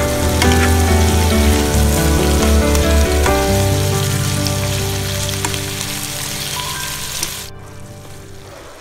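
Mixed vegetables sizzling in hot oil in a frying pan, a dense crackling hiss, under background music. The sizzling cuts off abruptly about seven and a half seconds in, and the music fades out soon after.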